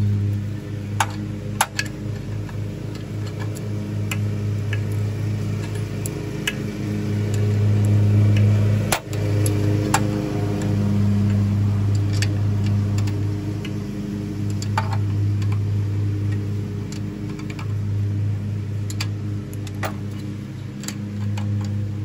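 A steady low machine hum from an unseen running engine or motor, slowly swelling and fading. About a dozen scattered light metallic clicks and clinks of a hand wrench on the mounting bolts come over it.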